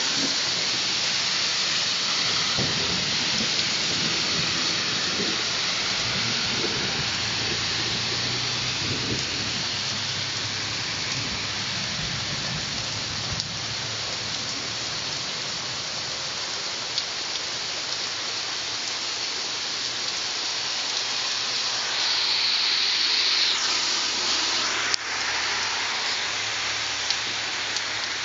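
Heavy rain pouring steadily, with a low rumble under it through the first ten seconds or so.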